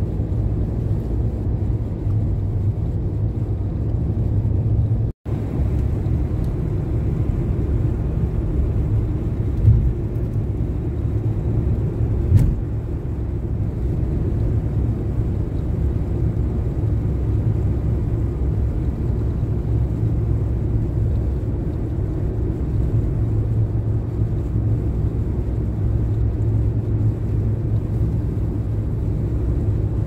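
Steady low rumble of a car's road and engine noise heard inside the cabin while driving on a snow-covered highway, with a brief dropout about five seconds in and two soft thumps a little later.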